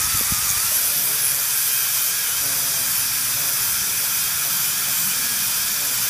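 Dental handpiece running a SpaceFile abrasive strip between the lower front teeth for interproximal enamel reduction (stripping), a steady hiss of the handpiece and its water spray, with a faint wavering whine in the first second.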